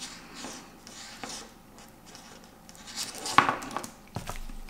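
Faint rustling and rubbing of multimeter test leads being handled and uncoiled, with a few sharper clicks about three seconds in, one of them the loudest sound.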